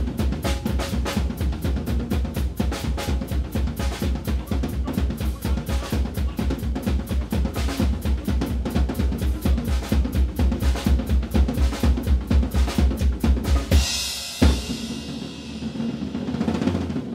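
Live band's drum kit pounding a fast, even run of beats with the bass drum, growing louder, then stopping on one big final hit with a cymbal crash about fourteen seconds in, the cymbals ringing out afterwards: the big finish of a song.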